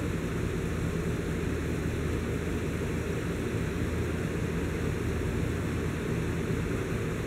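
A steady low hum with a hiss over it, unchanging throughout, with no distinct sounds standing out.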